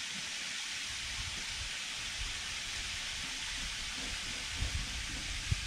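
Steady hissing background noise, with a few faint low knocks near the end.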